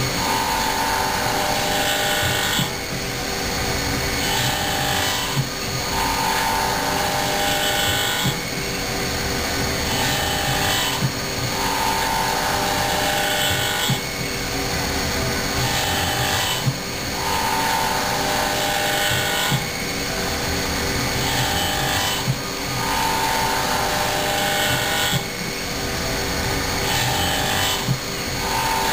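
Haas vertical machining center's spindle and cutter porting a cylinder head on a 5-axis setup: a steady machining whine with cutting noise that changes pitch in a regular cycle about every three seconds as the tool sweeps back and forth through the port.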